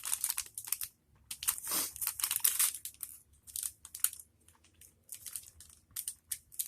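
Plastic candy wrapper crinkling and crackling in irregular bursts as it is handled and opened.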